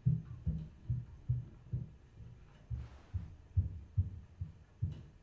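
Fast, low, muffled thudding pulse, about two to three thuds a second, like a racing heartbeat in a horror film's sound design.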